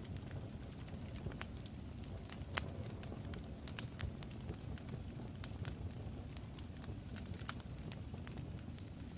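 Fire crackling: irregular sharp pops and snaps over a steady low rumble, with a faint high whistle that slides slightly down from about halfway through.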